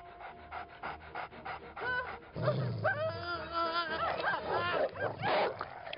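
A man howling and yelping like a dog in loud, rising-and-falling cries, starting about two and a half seconds in after a fast run of short, even pulses.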